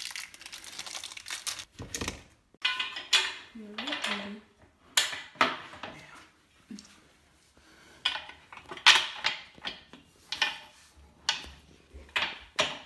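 Rustling, then a series of sharp clacks and knocks as the corner fittings and rails of an IKEA VANGSTA table frame are handled and locked together.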